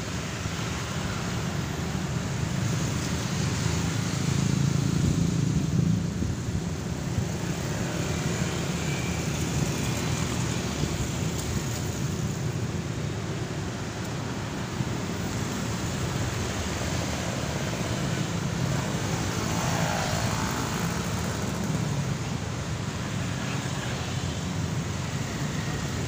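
Steady road traffic: cars and motorcycles driving past, a continuous mix of engines and tyre noise. It swells louder for a few seconds near the start as vehicles pass close by.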